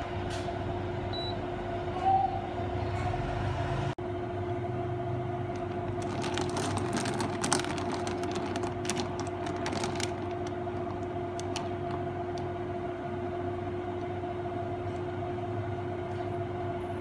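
Induction cooktop running at full power with a steady hum while a pot of clams comes to a boil, the water bubbling. Around the middle, a run of light clicks and taps as chopsticks stir the clams against the pot.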